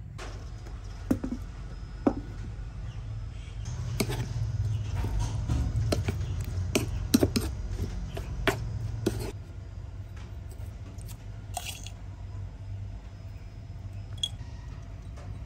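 Metal spoon clinking and scraping against a bowl while stirring sliced garlic and red chilies in liquid, with a run of sharp clicks in the middle, over a low steady hum.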